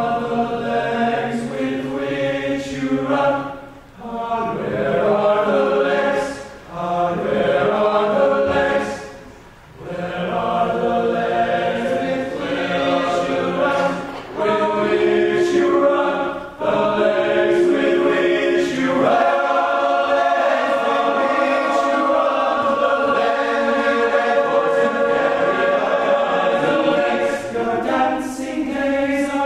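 All-male a cappella group singing in close harmony, phrase after phrase with short breaks between. About two-thirds in, the low voices drop out and the upper voices hold a long chord.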